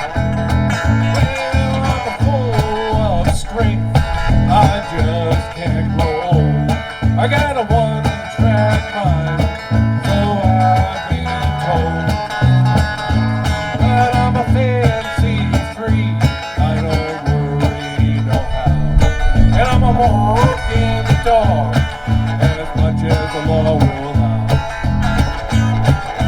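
Live country-rock band playing an instrumental break: an electric lead guitar with bending, sliding notes over a bass guitar line and a steady kick-drum beat.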